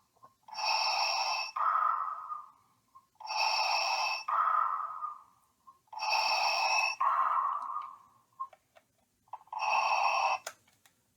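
Darth Vader belt clip toy playing its recorded Vader breathing: a hissing inhale followed by a lower exhale that fades, repeating about every two and a half to three seconds. There are three full breaths, then a fourth inhale cut short, and a click near the end.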